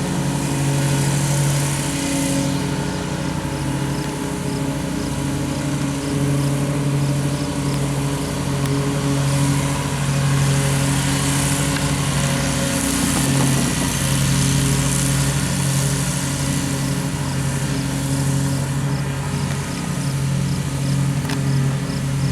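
A steady low mechanical hum like an idling engine, holding one pitch without rising or falling, with faint regular ticking high up in the second half.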